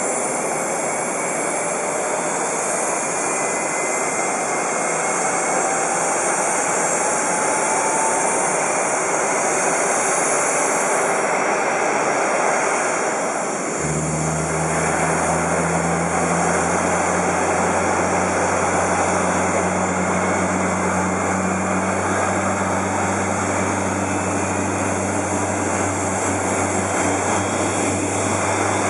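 Airbus A380's Rolls-Royce Trent 970 turbofan engines running on the ground: a steady jet rush with a faint whine that rises in pitch over the first several seconds. About halfway through, a steady low hum joins in.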